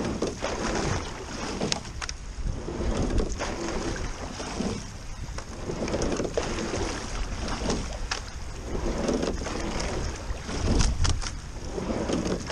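Rowing a double scull: water rushing past the hull and oar blades, swelling and fading with each stroke about every two and a half to three seconds, with a few sharp clicks.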